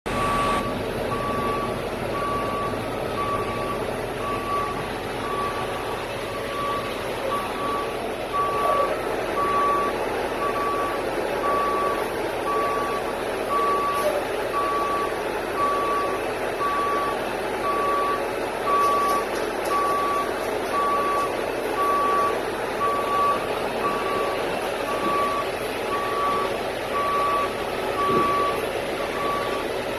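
Concrete mixer truck's back-up alarm beeping steadily, one pitch repeating about every two-thirds of a second, over the steady hum of the truck running.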